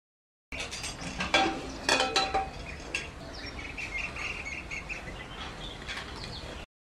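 A few sharp metallic clinks and knocks of an aluminium pressure cooker being handled, loudest in the first two seconds. Then a rapid twittering of small birds chirping in the background for a couple of seconds.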